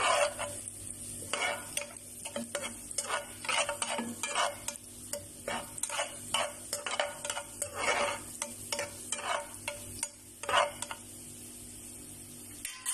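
Chopped garlic sizzling in hot oil in a frying pan while a metal spoon stirs it, scraping against the pan in repeated short strokes. Near the end the stirring stops and only the steady sizzle is left.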